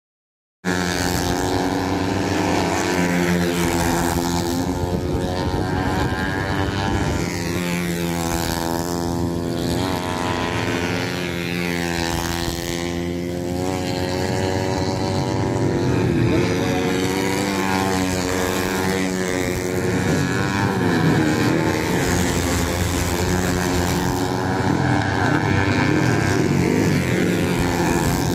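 Several small 110 cc racing motorcycles lapping a dirt oval at high revs, their engines rising and falling in pitch as they brake into and power out of the turns. The sound starts after a brief silent gap at the very start.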